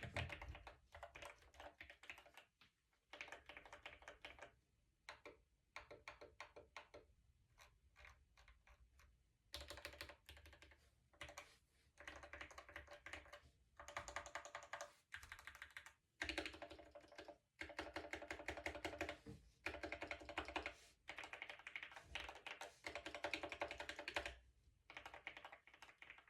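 Typing on a mechanical keyboard fitted with Gateron Milky Yellow linear switches: fast runs of keystrokes broken by short pauses.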